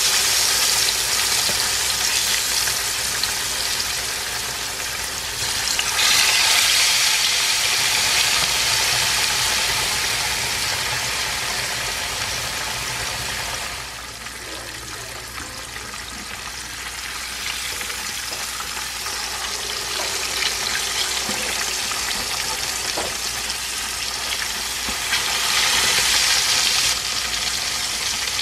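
Whole snapper deep-frying in a pan of hot oil, a steady dense sizzle and bubbling; the oil has been dusted with wheat flour to keep it from spattering. The sizzle swells louder a few times and drops back suddenly about halfway through.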